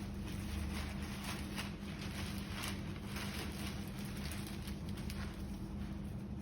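A steady low hum with background rumble, and faint intermittent rustling or handling noises over it.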